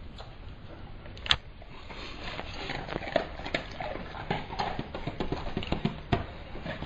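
Irregular light taps and knocks of hands and a plate on a tabletop, several close together through the middle and a sharper knock about a second in, over a steady low background hum.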